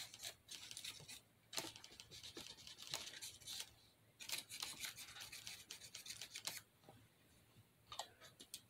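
Small paintbrush scratching and dabbing yellow paint into gaps on a textured craft surface: quick scratchy strokes in two bouts, the second stopping about two-thirds of the way through, then a few light clicks near the end.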